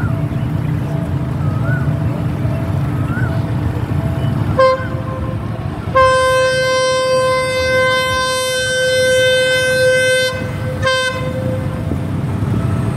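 Diesel locomotive horn sounding the crossing warning as the train approaches a level crossing: a short toot about four and a half seconds in, a long blast of about four seconds, then another short toot, over a steady low rumble.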